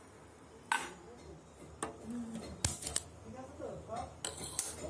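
About six sharp clicks and knocks of kitchen utensils being handled, spread over a few seconds.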